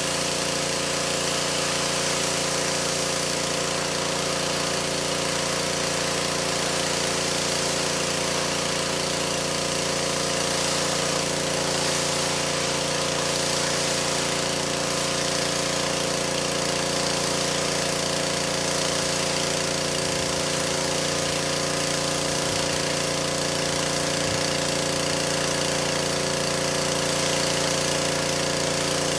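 Pressure washer running steadily, a constant motor hum under the hiss of the water spray.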